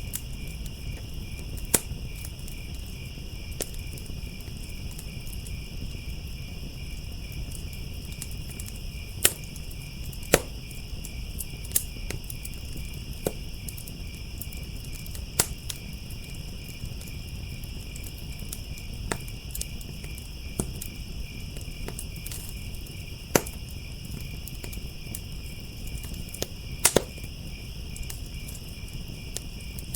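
Crickets trilling steadily and without a break, over a wood fire crackling with scattered sharp pops, a handful of them louder than the rest, and a low rumble beneath.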